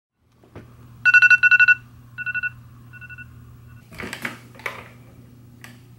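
Glass digital bathroom scale: a tap, then a rapid run of high electronic beeps that repeats twice more, fainter each time, followed by two scuffs as a bare foot steps onto the glass platform.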